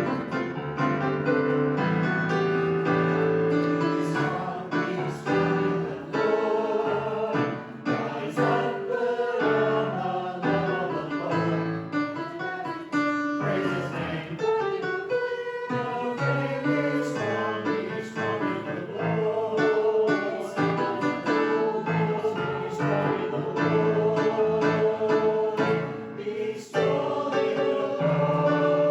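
A group of voices singing a worship song in a church, with instrumental accompaniment, in long held notes.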